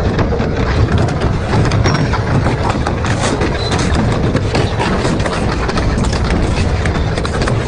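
Double-shaft metal shredder running under load, its cutters chewing through metal with a continuous dense clatter of cracks and knocks over a heavy rumble.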